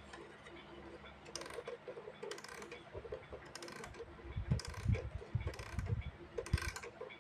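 Vintage mechanical alarm clock being wound by its key: short runs of ratchet clicks about once a second, with a few low knocks around the middle.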